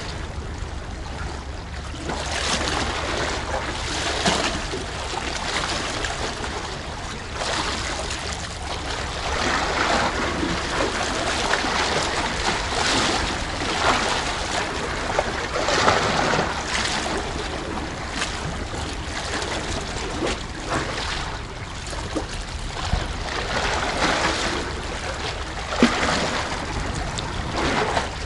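Seawater sloshing and lapping among tetrapod breakwater blocks, swelling and easing in irregular surges every few seconds, over a steady low hum.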